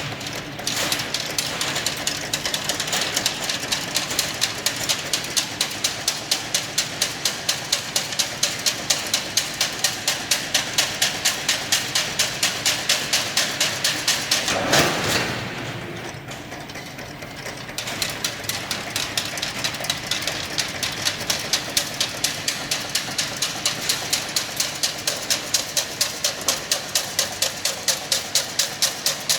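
Chain-link fence weaving machine running with a fast, regular mechanical clatter of about three to four strokes a second. About halfway through there is a brief louder surge, and the clatter stops for a few seconds before starting up again.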